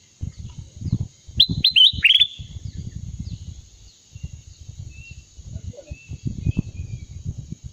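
Ruby-throated bulbul (kutilang emas) calling: a quick run of four loud, falling whistled notes about a second and a half in, with fainter short calls scattered around them. A steady high hiss and irregular low rumbling noise run underneath.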